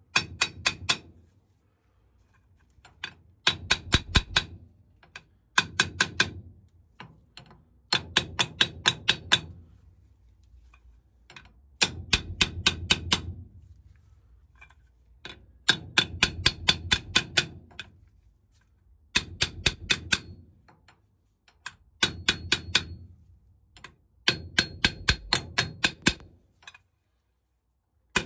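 Hammer blows on a metal installer tube, driving an SKF Speedi Sleeve wear sleeve onto a worn wheel-hub seal shaft. They come in quick bursts of about six blows a second, each burst about a second long with a pause between, repeated some eight times.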